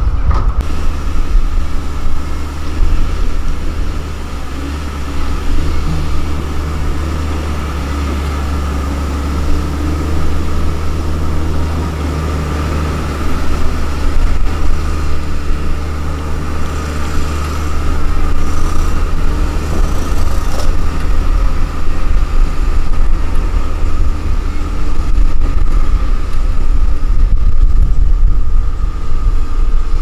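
LiuGong motor grader's diesel engine running under load with a steady low drone and a steady high whine above it; it gets louder a little past halfway.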